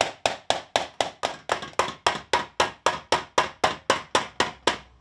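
Hammer beating a thin copper disc into a hollow in a wooden dishing block, raising the centre of a lampshade: about four even blows a second, each with a short metallic ring, stopping shortly before the end.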